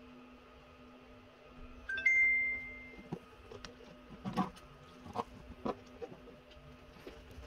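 A single bright ringing clink about two seconds in, like a glass or ceramic object being struck. It is followed by several light knocks and taps of objects being handled, over a steady low hum.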